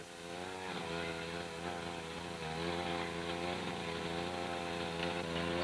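Small engine running steadily to power the hydraulic power jaws (jaws of life) as they snap a car's seat brackets, its pitch dipping slightly a couple of times as it takes load.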